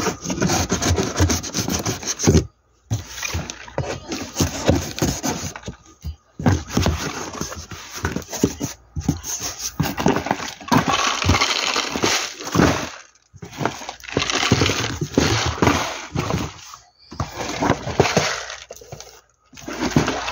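Unboxing noise: a cardboard box being opened and shrink-wrapped trays of cup noodles handled, a dense crinkling and rustling of plastic wrap and cardboard. It breaks off abruptly several times.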